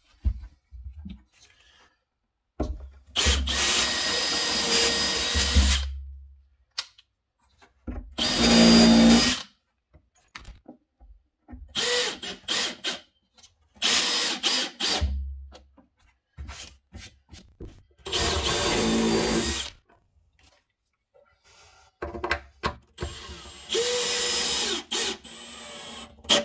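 Cordless Makita drill-drivers driving screws through a plywood cabinet into the timber behind it: about seven short runs of one to three seconds each, the motor starting and stopping as each screw goes in.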